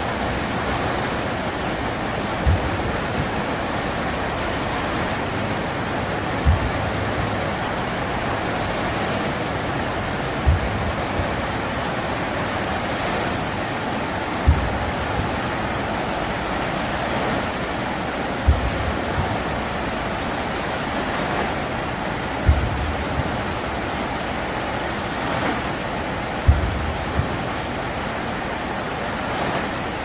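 Water from a large dancing fountain's jets rushing and splashing down into its basin as a steady hiss, with a short low thump about every four seconds.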